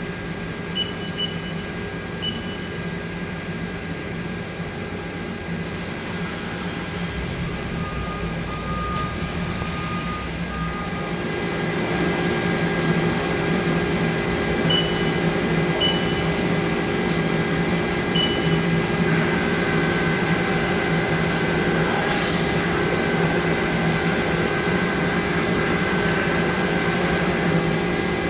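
Haas ST-15Y CNC lathe running with a steady machine hum of motors and fans, with a few short high beeps from the control keypad as keys are pressed. About twelve seconds in, something on the machine starts up and the hum grows louder, with new steady tones.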